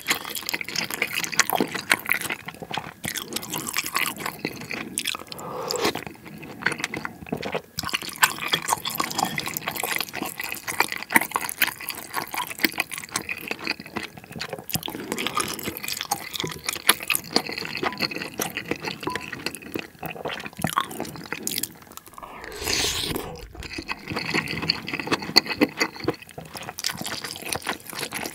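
Close-miked wet eating sounds: chewing, smacking and slurping of pork-and-rice soup and a soft dumpling, with small spoon clicks against the bowl. A louder rushing sound comes about 22 seconds in.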